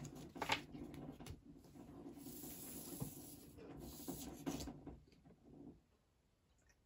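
Tarot cards being handled: rustling and sliding with a few light taps, stopping about five seconds in.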